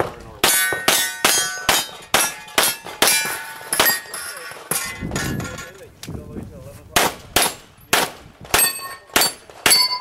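Rapid pistol fire, about three shots a second. Each hit makes the steel plate targets clang and ring. The first string is followed by a pause of about two seconds in the middle, then a second fast string.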